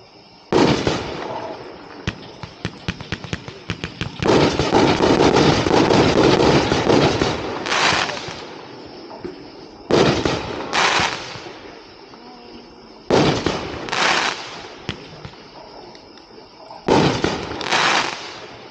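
A 24-shot consumer firework cake firing. It opens with a single loud report, then a rapid-fire burst of shots runs for about three seconds in the middle, followed by shots that come in pairs less than a second apart.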